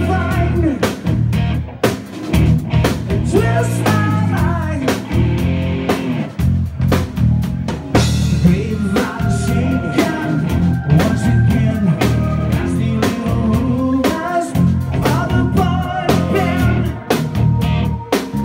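Live rock band playing loudly: a male lead singer over electric guitar, bass, keyboards and a drum kit beating steadily.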